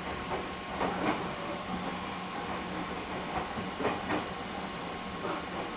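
Running noise inside a JR Central 211 series electric motor car travelling at low speed: a steady hum with a faint hiss, and its wheels clacking over rail joints in pairs (one bogie's two axles) about every three seconds.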